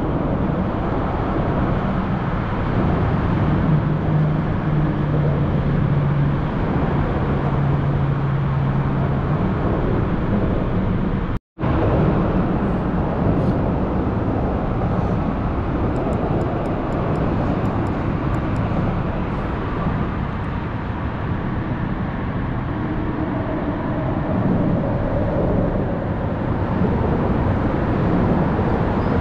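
Steady road traffic running close by. For several seconds a few seconds in, a low steady hum stands out, and the sound cuts out for an instant around eleven seconds in.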